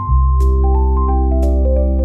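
Background music: a steady bass with plucked or mallet-like notes stepping down in pitch.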